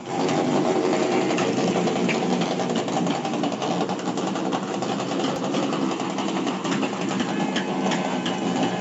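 New Year's midnight noise-making: a loud, dense, unbroken clatter of many rapid small bangs and rattles, made to drive away bad luck and welcome good fortune.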